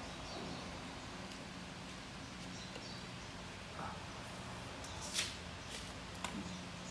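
Pomelo peel and segment membranes being pulled apart by hand, giving a few short crackles and rustles over a steady low hum. The sharpest crackle comes about five seconds in.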